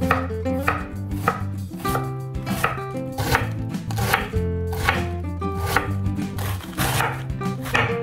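Santoku knife slicing thin shreds off a fresh cabbage wedge on a wooden cutting board: a steady run of crisp, crunchy cuts, roughly one to two a second, each ending as the blade meets the board.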